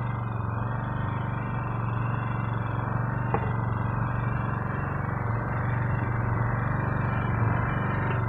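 Engine aboard a fishing boat running with a steady, even hum. A faint click comes about three seconds in.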